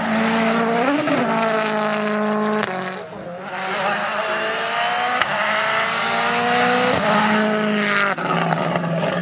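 Rally car engine at full throttle, rising in pitch through the gears with a brief lift about three seconds in, and two sharp cracks along the way. The engine note changes abruptly near the end.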